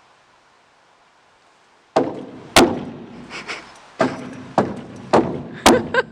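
A horse's hooves knocking hard against wood: a run of about seven sharp bangs, roughly one every half second, starting about two seconds in.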